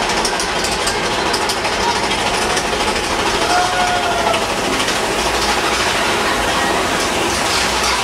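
Big Thunder Mountain Railroad mine-train roller coaster rolling and rattling along its track through a tunnel, heard from a seat on the train, with a brief high squeal about three and a half seconds in.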